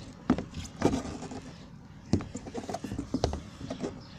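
Irregular knocks and thumps, with rustling close to the phone's microphone.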